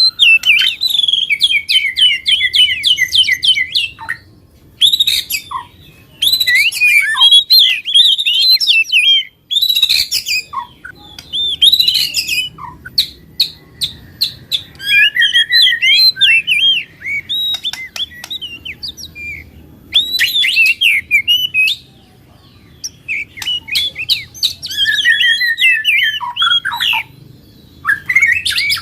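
Recorded songbird song played as a prompting track for caged birds: fast, high chirps and twittering trills in loud bursts of several seconds each, with short pauses between them.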